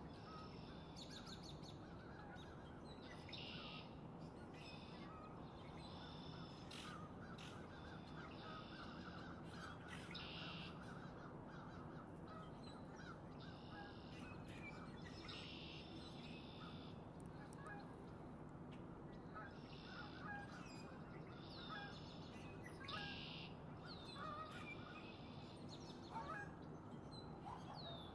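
Male red-winged blackbird calling, with short buzzy trills about half a second long repeated every second or two. Other birds call faintly in the background over a low steady hum.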